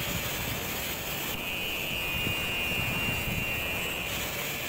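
Angle grinder with a polishing pad running against a granite countertop edge, smoothing the stone: a steady grinding hiss with a high motor whine that drops out for about the first second and a half and again near the end.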